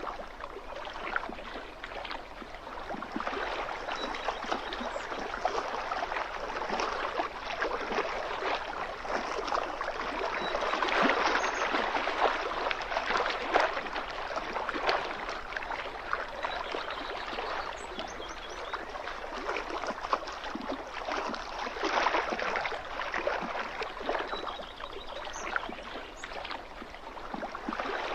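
Small waves lapping and splashing against a lakeshore: a continuous watery wash made of many little splashes, rising and falling, a little louder about halfway through.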